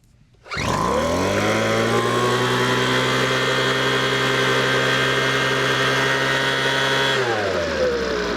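Weed Eater FB25 25cc two-stroke leaf blower engine firing up on a pull of the starter cord about half a second in and running steadily; about seven seconds in its speed drops with a sinking pitch, then it picks up again at the very end.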